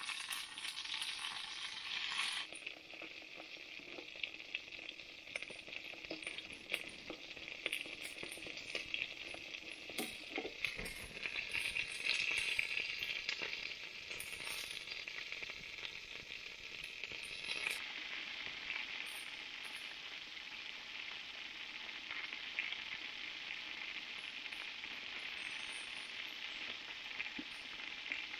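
Chicken drumsticks sizzling steadily as they fry in oil in a small frying pan on a wood-chip camp stove, with scattered small pops; the meat is browned golden and nearly done.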